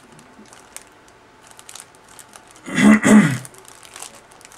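A man clearing his throat, loud and twice in quick succession about three seconds in. Before it, faint crinkling of the plastic bag of kit parts in his hands.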